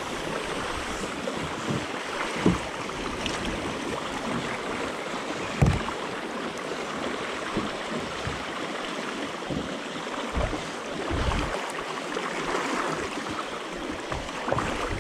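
Steady rushing of a shallow river flowing over gravel around a kayak, with a few brief low thumps.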